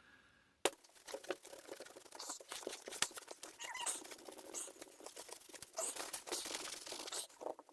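A sharp click, then continuous scratchy rubbing and crinkling of wet wipes being used to wipe up excess silicone sealant.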